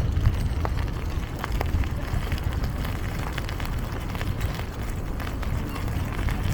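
Wind buffeting the microphone, a steady low rumble, with scattered light clicks.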